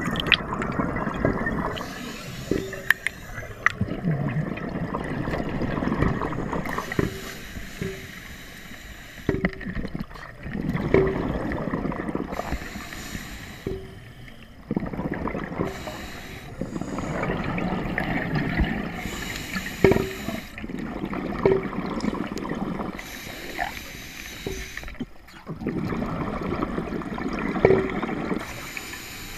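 Underwater breathing through a scuba regulator: the hiss of each inhalation and the gurgling rush of exhaled bubbles, repeating in slow breath cycles about every four seconds.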